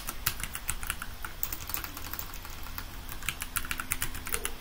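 Typing on a computer keyboard: quick, irregular keystrokes entering a password at a sudo prompt, with a sharper keystroke at the very end.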